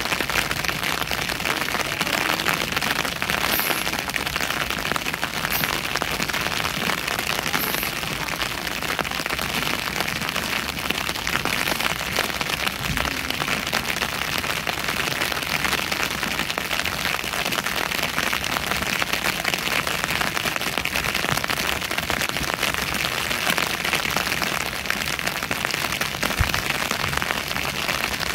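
Steady rain falling, a dense, even patter of close raindrops that holds at one level throughout.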